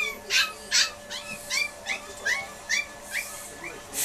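Teacup Pomeranian puppy whimpering: a run of short, high, squeaky cries, two or three a second, with a few brief hissy bursts near the start.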